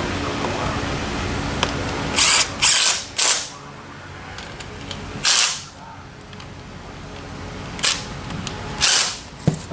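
Handheld power tool running bolts down in about six short bursts, three close together in the first half and the rest spaced out, snugging the fasteners before they are torqued.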